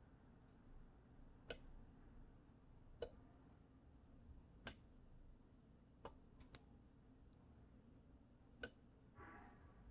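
Sharp single clicks of the relays on an Arduino relay board, switching as coin buttons are tapped in a phone app: about seven clicks spread out, three of them close together about six seconds in. A brief faint buzz near the end.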